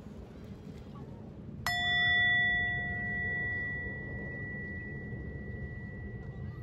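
A meditation bell struck once, about a second and a half in, ringing with a clear high tone that holds and fades slowly over several seconds, signalling the end of the breathing exercise. A steady low rumble runs underneath.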